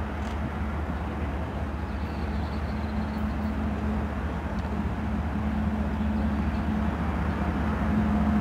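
GE Evolution Series diesel-electric locomotives (an ES44AC leading an ES44DC) running under power on an approaching intermodal train: a steady low engine drone that grows slowly louder.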